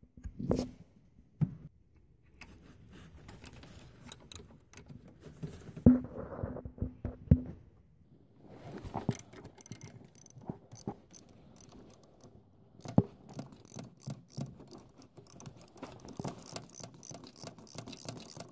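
Metal socket and small hand tools clicking and rattling against engine hardware as a bolt is turned by hand, in irregular clicks that come thick and fast in the second half. A short steady low tone sounds about six seconds in.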